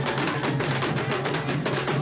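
San Benito procession drumming: drums and other percussion beat a fast, even rhythm of about eight to ten strokes a second.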